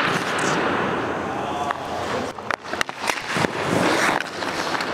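Ice hockey skates scraping and carving on rink ice, with several sharp knocks of sticks and pucks on the ice and goalie pads.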